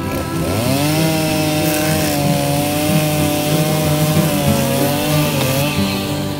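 Stihl Farm Boss two-stroke chainsaw revving up about half a second in and running at high, steady revs while cutting into a dead tree trunk. The pitch sags briefly near the end before the throttle eases off.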